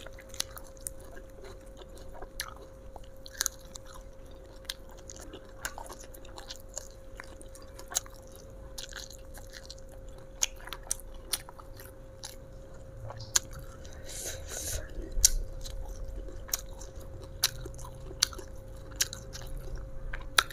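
Close-up chewing and biting of crunchy raw vegetables, with irregular crisp crunches throughout the mouthfuls, a little busier in the second half. A faint steady hum sits underneath.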